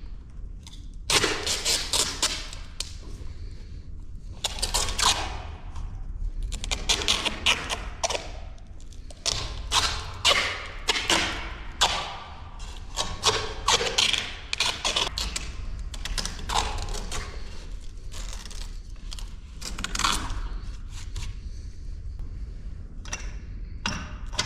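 Adhesive tape being pulled off the roll in repeated crackling strips, about a dozen short rips, over a steady low wind rumble on the microphone.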